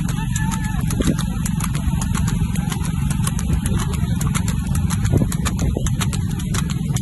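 Motorcycle engine running at a steady speed while riding, with wind on the microphone and a rapid, irregular patter of clicks over it.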